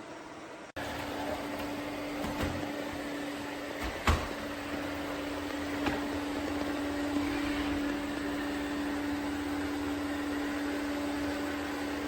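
Eureka robot vacuum running: a steady motor hum with one constant tone, starting abruptly under a second in, with a single knock about four seconds in.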